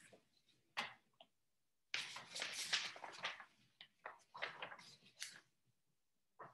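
Faint scraping and rustling handling noise close to the microphone. There is a single click about a second in, then a longer scratchy rasp and several shorter scrapes.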